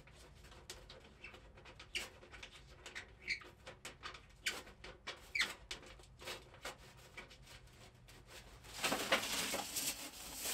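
Thin sheet metal of a roll-up stovepipe being rolled and worked by hand: scattered clicks and ticks with a few short squeaks of metal rubbing on metal. Louder rustling starts about nine seconds in.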